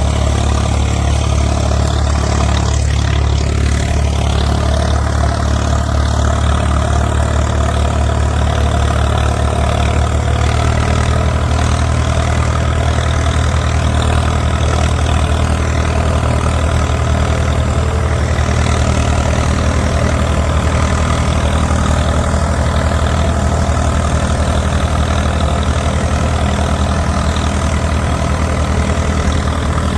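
Diesel engine of farm machinery, a combine harvester or tractor, running steadily at a constant speed with a deep, even low rumble and no revving.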